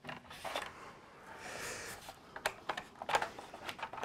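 Light plastic clicks and taps from a Hasbro Vintage Collection X-Wing toy being handled and pressed together during assembly, with a soft rustle a little before the middle.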